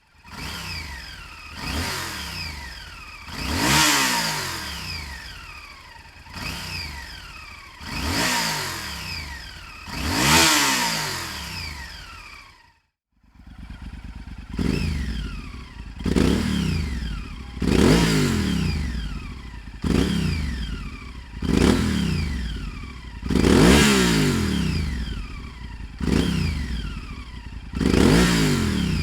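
Honda VTR 1000 F's V-twin engine being blipped repeatedly, each rev climbing and then falling back to idle. There are about five blips, a brief break where the recording cuts, then about eight quicker blips roughly every two seconds.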